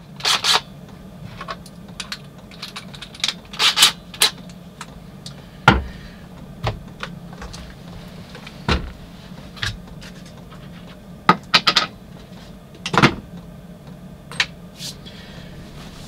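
Handling noises: scattered clicks and knocks as a cordless drill is fiddled with and set down on a wooden counter, with clothing rustling as a hoodie is pulled off near the end, over a steady low hum.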